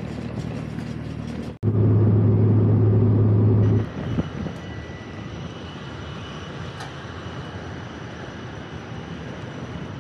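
Steady engine or machinery drone heard in spliced sections: a moderate hum, then a sudden cut to a much louder low drone lasting about two seconds, then a quieter even rumble with faint high whines.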